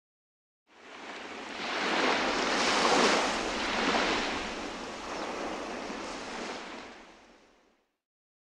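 Ocean surf washing in: a rushing noise that fades in about a second in, swells over the next few seconds, and fades away near the end.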